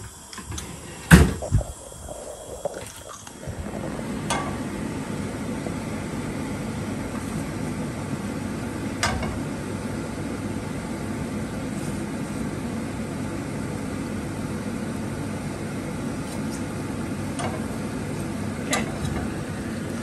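Metal kitchenware clanking on a gas hob with a nonstick frying pan, a few sharp knocks early on, then a steady rushing noise under scattered light clicks of tongs against the pan as butter is pushed around.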